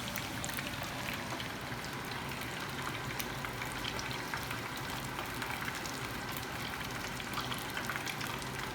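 Battered chicken drumsticks deep-frying in hot oil: a steady sizzle full of fine, scattered crackles.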